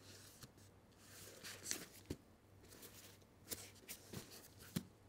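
Faint handling of a leather Air Jordan 1 High OG sneaker in gloved hands: soft rubbing and brushing as the shoe is turned, with a few small ticks.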